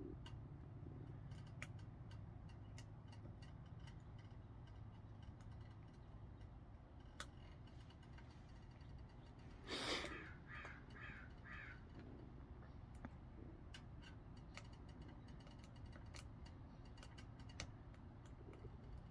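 Wood fire burning faintly in a tin-can gasifier stove: scattered small crackles and ticks over a low steady rumble. About ten seconds in, a bird gives a harsh call of four quick notes, the loudest sound.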